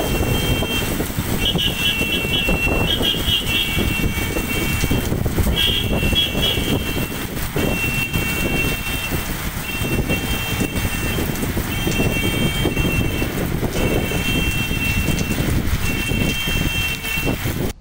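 Heavy rain pouring onto a street, a steady hiss over a fluctuating low rumble. Through it an electronic beeper sounds a high tone lasting about a second, repeating roughly every two seconds, some of the tones warbling.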